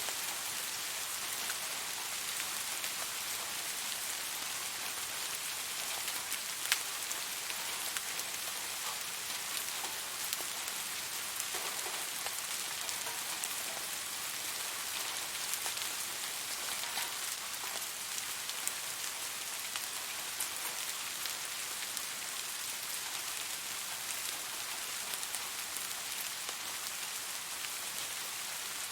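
Steady rain falling, with the patter of individual drops landing and an occasional sharper drip.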